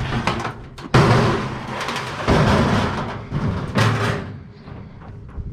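Scrap metal being handled: a sudden loud bang about a second in, then scraping and rattling, and another short knock near four seconds.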